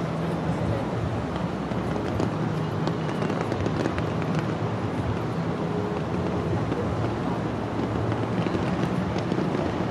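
Distant fireworks crackling faintly over a steady outdoor hum of traffic and crowd.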